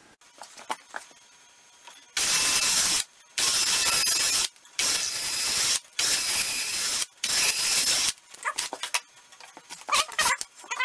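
Cordless drill with a long bit boring into a cedar log. It runs in five bursts of about a second each with short pauses, drilling the pilot hole for a lag screw. Light clicks and handling knocks follow.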